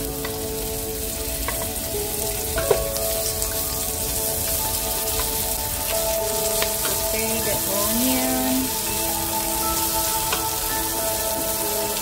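Chopped onions sizzling and frying in hot oil in a pot as they are pushed in with a wooden spatula, a steady hiss. Soft background music with long held notes plays underneath.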